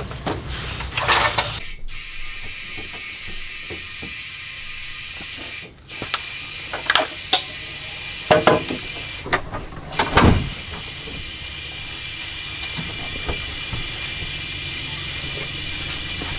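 A machine fetched to clear dust from the old car's parts runs with a steady hiss, setting in about two seconds in. Several sharp knocks and clicks come over it midway.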